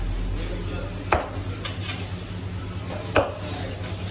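Heavy cleaver chopping through Indian salmon steaks and striking the wooden chopping block, two sharp chops about two seconds apart, over a steady low hum.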